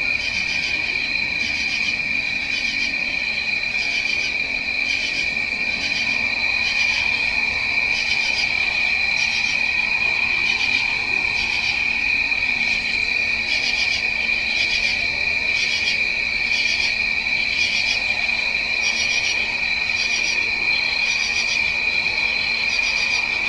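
Night chorus of crickets: a steady high-pitched trill under a regular pulsing chirp, about one and a half chirps a second.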